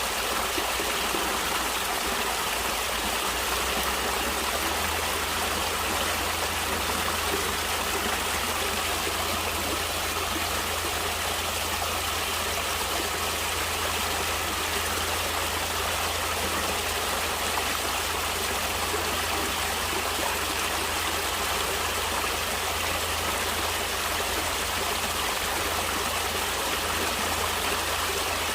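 Natural stream water flowing: a steady, unbroken rushing with no pauses or single splashes.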